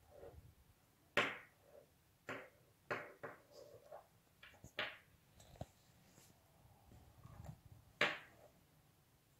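Paracord strands being handled and worked through a knot by hand: scattered light taps and rustles, the sharpest about a second in and again near the end.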